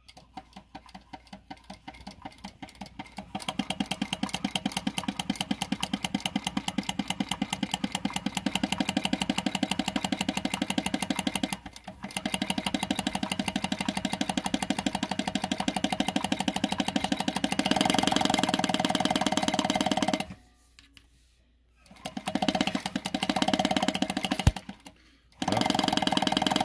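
Consew Premier 1206 RB-1 industrial sewing machine stitching through cotton fabric. The needle strokes start slow and soon speed up, then run faster still about two-thirds of the way in, with a few short stops between runs. It is sewing again now that its bobbin hook timing has been reset after a jam.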